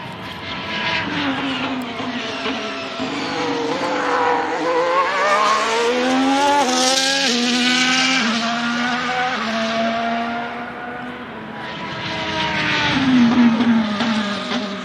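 Ferrari SF-23 Formula 1 car's 1.6-litre turbocharged hybrid V6 accelerating hard. The note climbs, then drops in a series of steps as it shifts up through the gears, and falls away again near the end, loudest just before the end.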